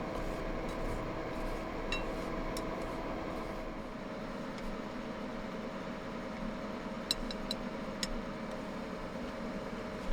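Steady hum of an electric cooking appliance working, with a few light clinks of utensils against cookware, a cluster of them near the end.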